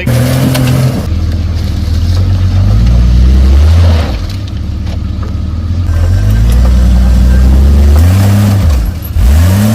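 Jeep Cherokee XJ engine revving hard in repeated surges while driving through a creek crossing, its pitch climbing and dropping several times.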